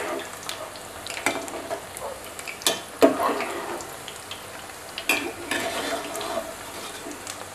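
Spinach pakodas sizzling as they deep-fry in hot oil, with a metal slotted spoon stirring them and knocking against the pan a few times, the sharpest knock about three seconds in.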